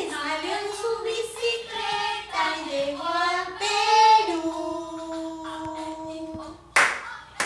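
A woman and a young girl singing a children's vowel song together. They change notes every beat or so, then hold one long note for about two seconds, and a short sharp sound follows near the end.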